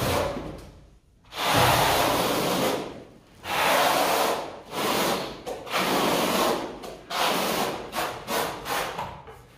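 Notched steel trowel scraping tile adhesive across a concrete floor: a run of rough scraping strokes, each about a second long, growing shorter and quicker near the end.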